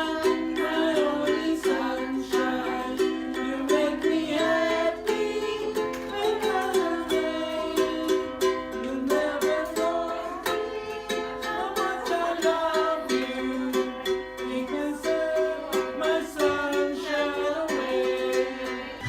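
Music: plucked strings under a melody line that glides up and down in pitch.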